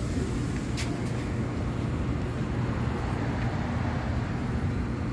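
Steady low rumble of background noise, with one short click about a second in.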